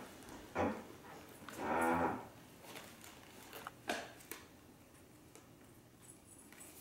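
A person's brief hummed "mmm" about two seconds in, one steady low note lasting about half a second, with a soft noise just before it. A sharp click about four seconds in and a few faint ticks follow over quiet room tone.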